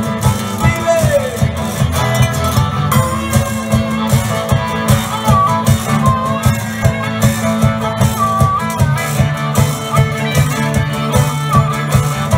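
Live blues band playing an instrumental passage: electric and acoustic guitars over a steady drum beat, with a lead line around the middle of the range that bends up and down in pitch.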